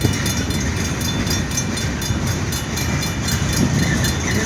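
Freight train rolling slowly past: a steady rumble of wheels on rail, with no horn.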